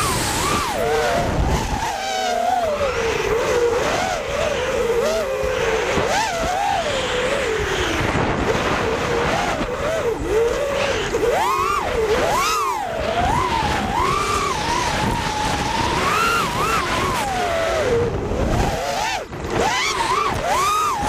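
FPV racing drone's electric motors and propellers whining, the pitch swooping up and down continually as the throttle changes through the turns.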